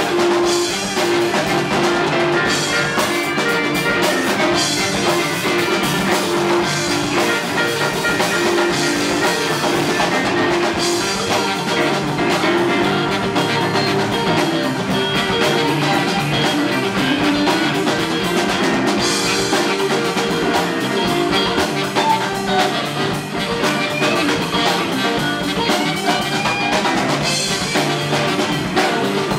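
Live rock band playing: drum kit, electric guitar, bass guitar, electric keyboard and saxophone, with the saxophone playing over the groove.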